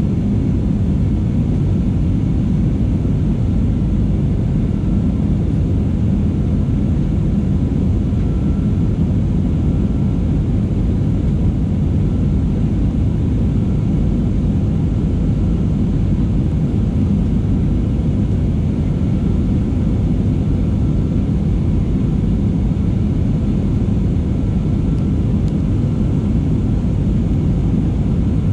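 Steady, even low rumble of a commercial airliner's engines.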